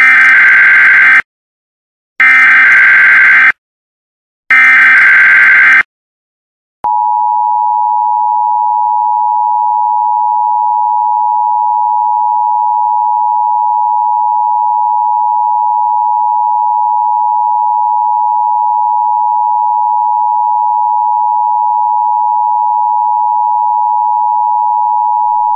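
Emergency Alert System audio: three loud SAME header data bursts, each about a second long with a short silence between, then from about seven seconds in the steady two-tone EAS attention signal (853 and 960 Hz) sounding continuously.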